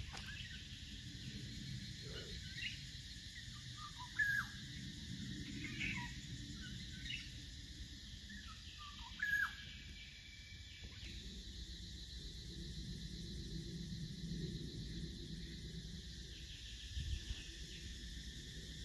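Forest ambience: birds calling with short, falling chirps, a few in a cluster about four to six seconds in and the loudest near four and nine seconds, over a steady high insect hum and a low rumble.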